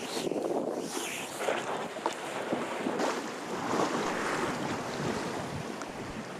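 Wind buffeting the microphone over water rushing along the hull of a sailing yacht under way, the noise rising and falling in gusts.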